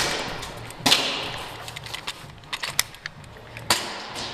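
Airsoft pistol shots: three sharp cracks, each trailed by an echo off the warehouse walls, with a few lighter clicks in between.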